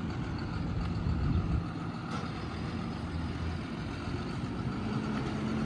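Tractor engine running steadily, its note rising a little near the end.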